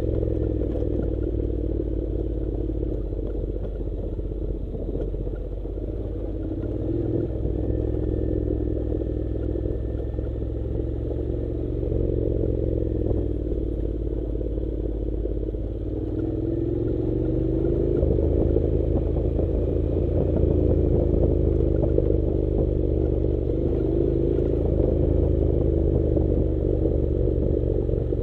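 Honda NC700's parallel-twin engine running at low speed on a gravel dirt road, with the clatter of stones under the tyres. A little past halfway the engine note rises and gets louder.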